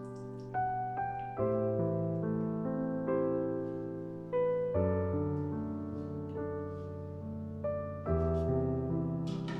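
Slow, gentle solo piano music, held chords and single notes changing every second or so.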